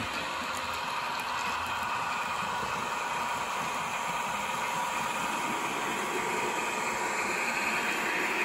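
N-scale model of a DB V200 diesel locomotive running along the track with its coaches: a steady whir of the small motor and wheels on the rails, growing a little louder near the end.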